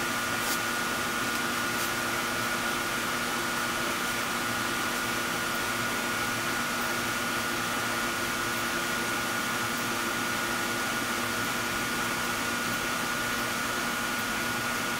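Steady whir of a mechanical fan, with a constant high whine over a low hum and no change in speed.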